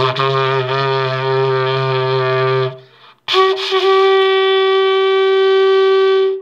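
Handmade ceramic horn, a coiled hoop-shaped model, blown with buzzing lips. It sounds a low note for nearly three seconds, then after a short breath a higher note, the first harmonic, held steady for about three seconds.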